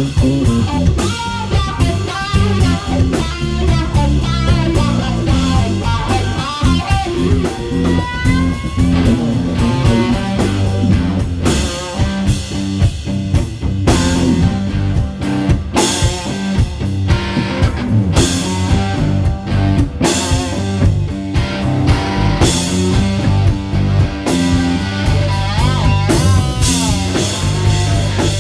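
Live rock band playing: a Telecaster-style electric guitar plays lead lines with bent notes over bass guitar and a drum kit.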